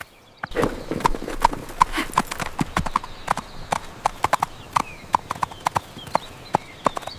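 A quick, uneven run of sharp clopping knocks, some with a short ring, starting about half a second in.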